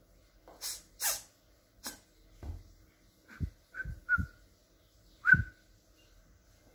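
Two domestic cats squaring off: two short hisses about a second in, then a few short, clipped growling cries, the loudest near the end.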